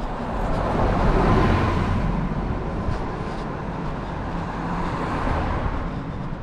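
City bus driving past close by: engine and tyre noise swelling to its loudest about a second in, then fading as it goes by. Another vehicle's road noise follows later.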